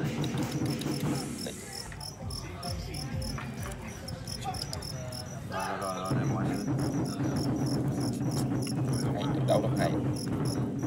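Field crickets chirping: a steady run of short, high, evenly spaced pulses.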